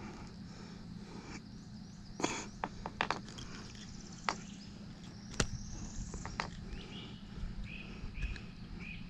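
Swamp outdoor sound with a few sharp knocks and clicks, the loudest about halfway through, and short bird chirps in the later seconds over a faint steady hum.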